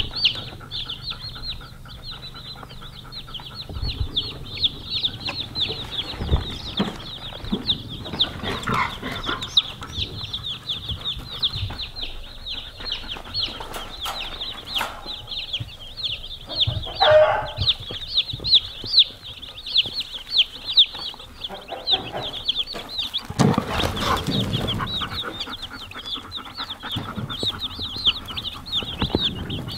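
A brood of day-old Freedom Ranger chicks peeping continuously, a dense stream of short, high peeps several times a second. A few scattered thumps sound among them.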